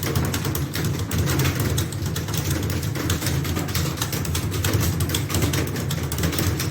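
Keyboards being typed on: rapid, irregular key clicks over a steady low hum.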